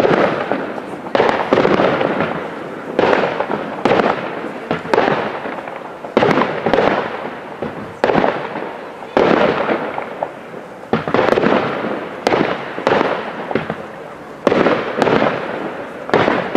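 Fireworks display: aerial shells bursting one after another, a dozen or more sharp bangs about a second apart, each trailing off into a long fading tail.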